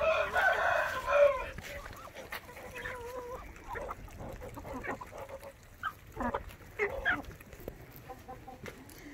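A rooster crows once, loudly, for about a second and a half, followed by scattered short clucks and calls from the flock of chickens.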